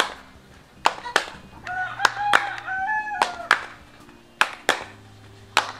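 Sharp hand claps in pairs, about one pair a second, from two dancers clapping and jumping. A rooster crows once in the middle, a call of about a second and a half that steps in pitch.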